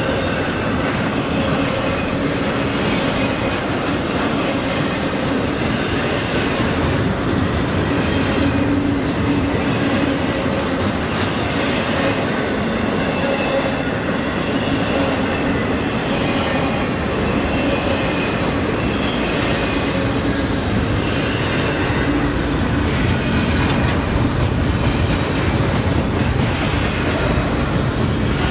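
Freight train cars rolling past close by: a steady rumble of steel wheels on rail, with clicking of wheels over the rail joints.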